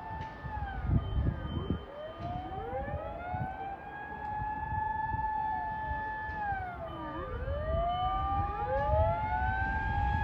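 Two or more Japanese fire-engine sirens wailing at once, out of step with each other. Each rises slowly to a high note, holds it for a few seconds, then slides down before climbing again. A low rumble of engines and traffic runs underneath.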